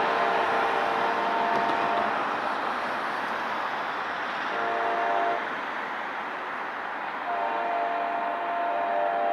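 Multi-note horn of a CSX local's lead EMD locomotive: a long blast ending about two seconds in, a short blast around five seconds, then another long blast starting about seven seconds in, the long-long-short-long grade-crossing signal. Underneath runs the steady rumble of the train rolling on the track.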